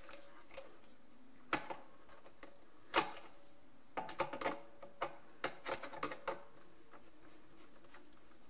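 Small clicks and taps of a screwdriver and wire at the terminal screws of a plastic wired doorbell chime, as a wire is looped around a screw and tightened down. A sharper click comes about three seconds in, then a run of quick clicks between about four and six seconds.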